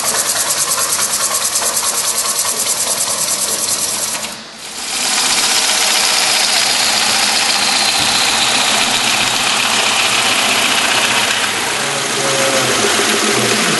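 Bowl gouge cutting inside a large, thin-walled green poplar bowl as it spins on a wood lathe: a loud, steady hiss of wet wood peeling off in long shavings, with a fast, even pulse in the first few seconds. It breaks off briefly about four and a half seconds in, then goes on.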